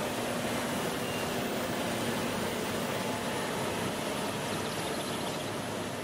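Radio-controlled model truck running, a steady mechanical noise that fades in just before and dies away after.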